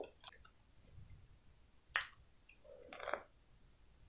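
Quiet eating sounds of a sauce-covered hot dog close to the microphone: one sharp wet mouth click about two seconds in, and a soft squishy chew a second later.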